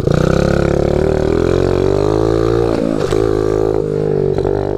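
Small 50cc pit bike's single-cylinder engine running steadily, with a slight waver in pitch and a brief dip about three seconds in.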